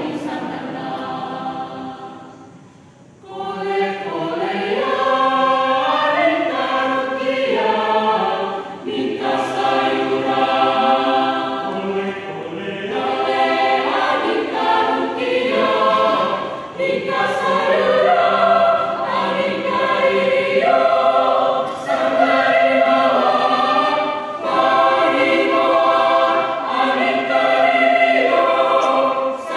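Mixed choir of men's and women's voices singing in parts, unaccompanied. The singing fades away about two to three seconds in, then the choir comes back in full and sings on.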